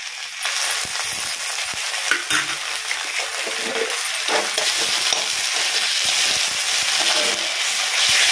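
Fried onions and ground onion-garlic-ginger masala paste sizzling in oil in a kadai. A steel spatula stirs and scrapes them, with scattered clicks against the pan. The sizzle grows louder toward the end.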